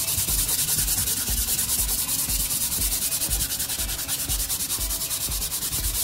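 Sandpaper rubbed by hand over a painted wooden crate in quick, even back-and-forth strokes, about two a second: a steady scratchy rasp as the paint is sanded back to the wood for a distressed look.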